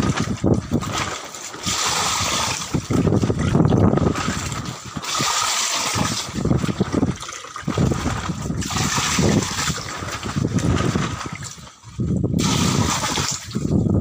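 Pond water sloshing and splashing over the rim of a plastic bag of whiteleg shrimp fry held in the pond as it is acclimatized, coming in irregular surges.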